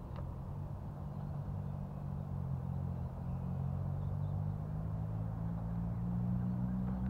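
Low, steady mechanical hum of several pitched tones, slowly growing louder and rising slightly in pitch toward the end.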